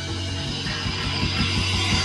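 Live rock band playing loud distorted electric guitar and bass, with a fast run of repeated low strokes starting about half a second in.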